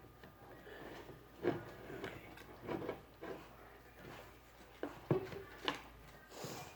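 Scattered knocks, clicks and rustles of small objects being handled, about a dozen short sounds, with a brief hiss near the end.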